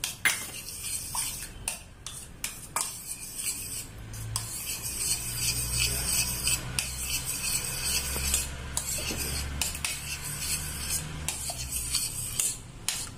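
Steel spoon beating eggs and milk in a stainless steel saucepan: quick repeated clinking and scraping of the spoon against the pan, getting faster and more continuous after about three seconds.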